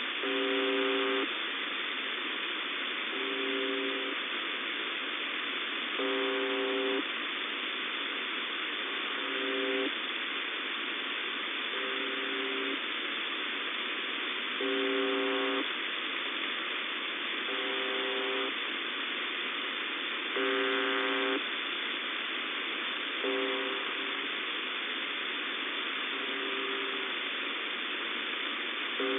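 UVB-76 "The Buzzer" received on 4625 kHz shortwave: short buzzes of about a second each, repeating roughly every three seconds, over a steady hiss of receiver noise.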